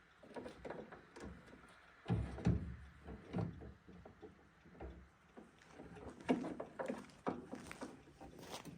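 Irregular knocks, clicks and clunks of hard objects being handled. A few heavier low thumps come about two seconds in, and sharper ticks follow later.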